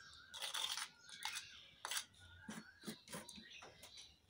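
Faint scraping and a few light clinks of utensils against metal dishes as ground poppy-seed paste is scraped out of a bowl into a small tiffin box.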